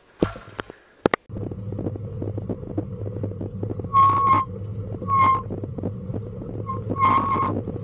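Pet bicycle trailer rolling along an asphalt road behind a bicycle: a steady rumble and rattle from the wheels that starts suddenly about a second in. From about halfway there are a few short, high squeaks of even pitch.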